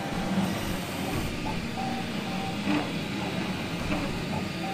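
Dremel 3D40 3D printer printing: its stepper motors whine in short tones that keep changing pitch as the print head moves, over a steady mechanical hum. Background music plays underneath.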